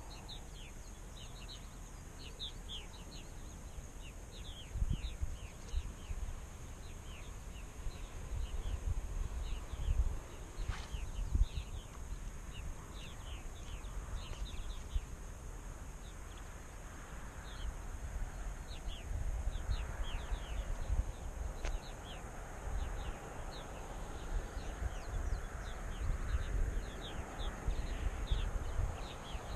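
Small birds chirping over and over in short falling chirps, with wind gusting against the microphone in low rumbles that come and go.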